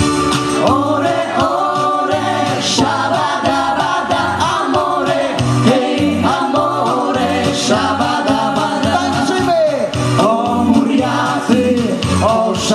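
Women's vocal group singing a Roma-style song together over amplified backing music with a steady bass beat.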